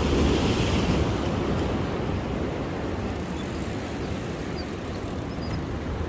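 Steady rush of wind on the microphone and waves at the breakwater, a little louder in the first second.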